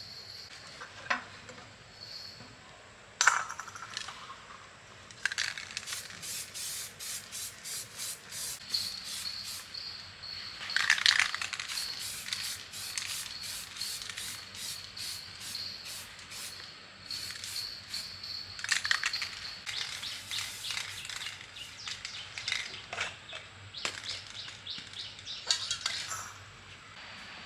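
Rhythmic hand scraping strokes on a workpiece, about three a second, in two long runs with a short pause between them.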